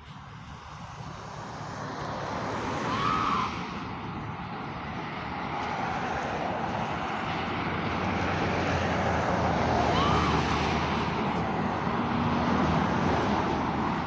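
Highway traffic passing close by: tyre and engine noise of cars and trucks, growing louder over the first several seconds and then holding steady, with no horn.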